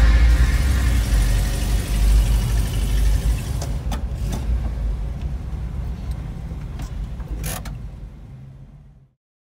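Vehicle engine running at low speed, heard from inside the cabin while creeping forward in slow traffic, with a few short clicks and knocks. The sound fades out about nine seconds in.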